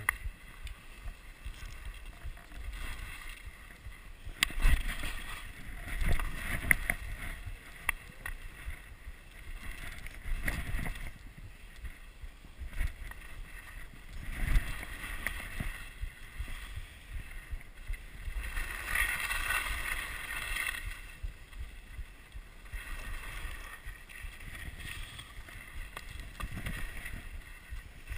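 Skis swishing and scraping over snow in irregular swells as the skier turns, the longest scrape about two-thirds of the way through, with a low rumble of wind on the microphone.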